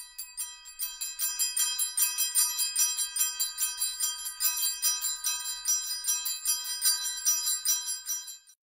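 Festive bell music: bright bells jingling in a fast, even run of strikes, cutting off shortly before the end.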